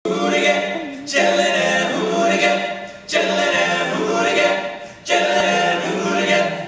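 Male a cappella group singing in close harmony over a held low bass note, the phrases restarting sharply about every two seconds.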